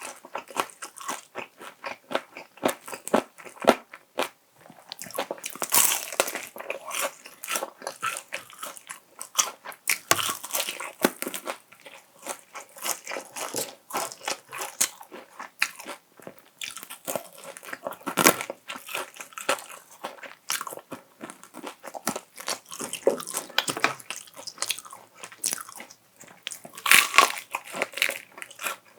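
Close-miked eating sounds: crisp crunching bites and chewing of honey-glazed fried chicken, a steady irregular crackle with several louder crunches, the loudest near the end.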